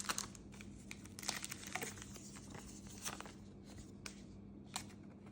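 Plastic packaging crinkling and rustling as trading cards are handled, with a few light clicks.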